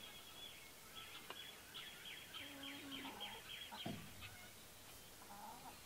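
Faint birdsong: a quick trill of about seven repeated chirps near the middle, among scattered short calls, with a low call from chickens in the coop.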